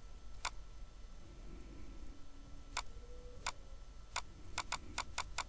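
Computer mouse button clicking: a few single clicks, then a quickening run of about six clicks near the end. A faint steady low hum runs underneath.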